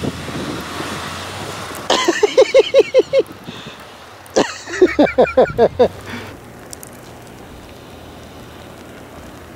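Two bursts of a person's voice in quick, evenly repeated pulses, about two seconds in and again near the middle, over a low vehicle hum that drops away after the first second or two.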